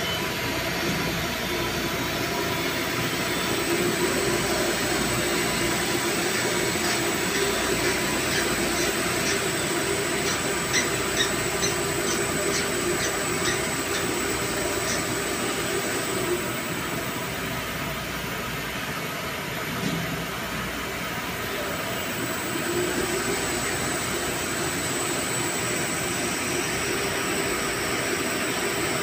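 Steady, loud machinery drone of a pump room, with a run of light metallic ticks and clinks from about seven to fifteen seconds in as a pipe fitting is worked by hand.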